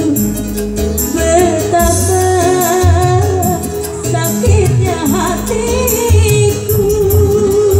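A woman singing a wavering melody into a microphone over keyboard backing music with a steady beat, all amplified through PA speakers.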